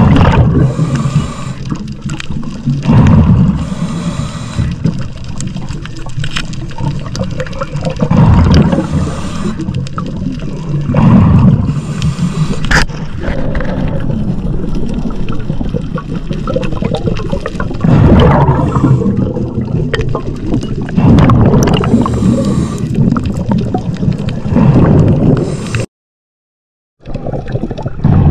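Scuba diver's breathing heard underwater through the regulator: loud surges of exhaled bubbles gurgling every few seconds over a steady water rush. The sound cuts out for about a second near the end.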